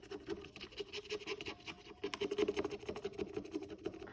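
Paper rustling and scratching: quick light crackles as a savings-challenge book and its pages are handled, over a steady low hum.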